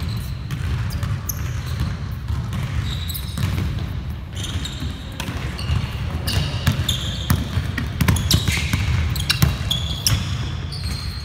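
Basketballs bouncing on a hardwood gym floor, with repeated sharp thuds and short high-pitched sneaker squeaks as players cut and jump, over the hall's steady low rumble.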